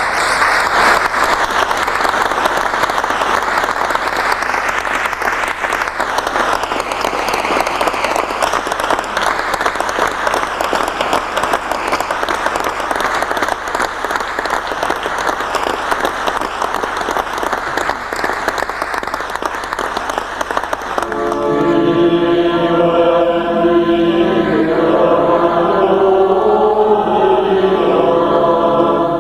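A large crowd applauding, starting suddenly and keeping up steadily. About 21 seconds in, the applause gives way to many voices singing together.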